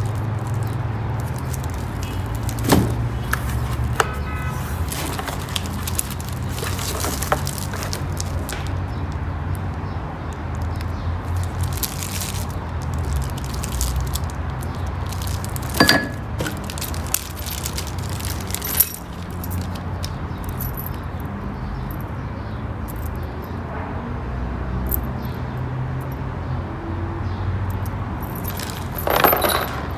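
Items being handled during an unboxing: scattered knocks and metallic clinks over a steady low hum.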